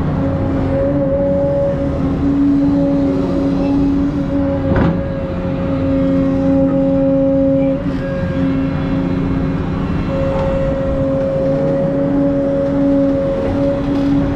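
Excavator's diesel engine and hydraulics running steadily, with a constant humming tone over the engine rumble; a single sharp knock about five seconds in.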